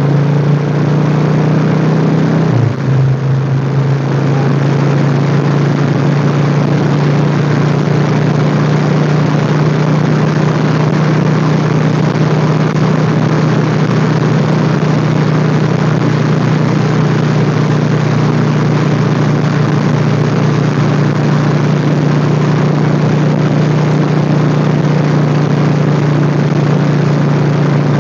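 Motorcycle engine running steadily at road speed, with heavy wind rush over the microphone. There is a brief dip and shift in the engine note about two and a half seconds in.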